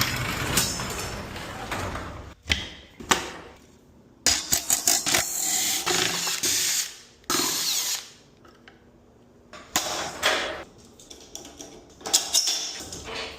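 Handheld power drill/driver run in several short bursts with clicks and clatter between, as fasteners come out to open up a garage door opener for a belt replacement.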